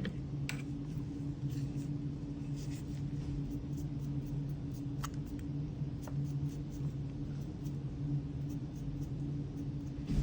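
A steady low hum with a few faint light ticks, one about half a second in and one near five seconds.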